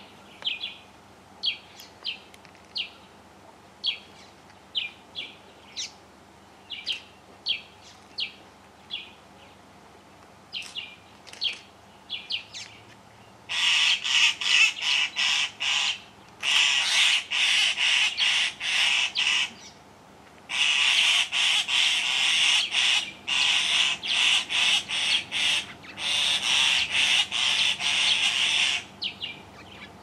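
Glossy starlings mobbing a rock monitor lizard with alarm calls. First come short, sharp calls in quick succession. From about halfway there are runs of loud, harsh scolding calls, broken by a few brief pauses.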